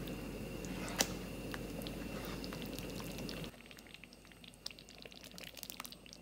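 A spatula stirring thick peanut sauce as it cooks in a pan: a soft steady noise with one sharp click about a second in. About three and a half seconds in the level drops suddenly, leaving scattered small ticks and pops from the thick sauce.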